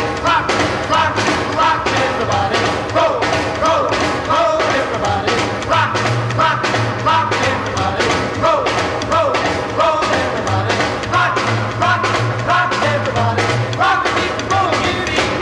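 Rock and roll record playing: a wordless stretch with a steady driving beat and a repeating lead line of short bending notes.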